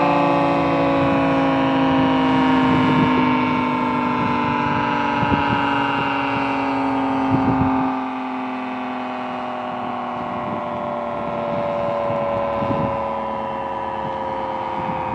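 Federal Signal 2T22 two-tone outdoor warning siren winding down at the end of its steady alert signal, its chord sliding slowly and evenly lower as it fades.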